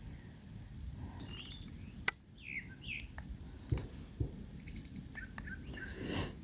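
Songbirds chirping in short falling notes, with a sharp click about two seconds in. A few dull thumps, two of them about half a second apart, are distant gunshots.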